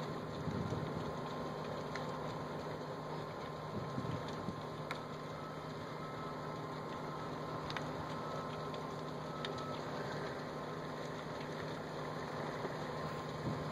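A vehicle engine idling steadily, a low hum with a faint higher tone over a wash of background noise, with a few faint clicks.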